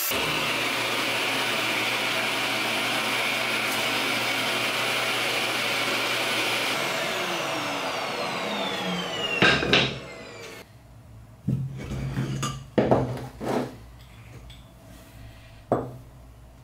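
A handheld power tool running steadily while cutting wood, then its motor winding down with a falling whine over about two seconds. This is followed by a handful of sharp knocks and clacks of wood and tools being handled.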